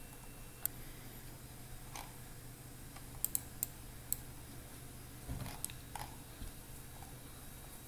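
A handful of scattered, sharp clicks from a computer mouse and keyboard in use, including a quick cluster of three near the middle, over a faint steady hum.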